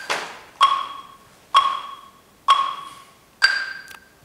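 Steady percussive ticking, a little under one tick a second, each a sharp click with a short ringing tone. One tick near the end is higher-pitched, like the accented first beat of a metronome.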